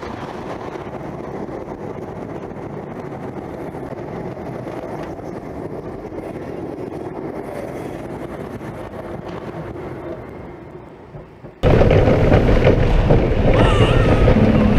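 Roller coaster train running through eddy-current magnetic brakes: a steady rushing hum that dies away after about ten seconds as the train slows. Then a sudden cut to a much louder rumble of wheels on track and wind, heard from onboard another coaster train.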